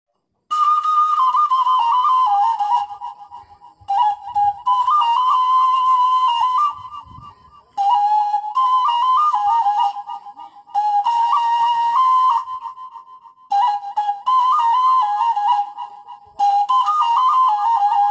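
A tulila, a small Batak bamboo flute, playing a melody in short phrases of two to three seconds. The tune steps between a handful of notes, and there are six phrases with brief pauses between them.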